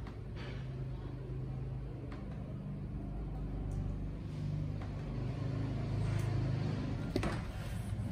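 A steady low hum, with a few faint scattered clicks.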